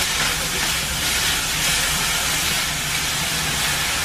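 Yakisoba noodles, vegetables and a fried egg sizzling steadily on a hot flat iron teppan griddle while the noodles are stirred, with a low steady hum underneath.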